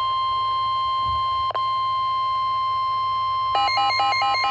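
NOAA Weather Radio warning alarm tone, a single steady electronic tone near 1 kHz sounding for a severe thunderstorm warning, with a brief dropout about a second and a half in. About three and a half seconds in, a rapid beeping of several tones is added on top of it.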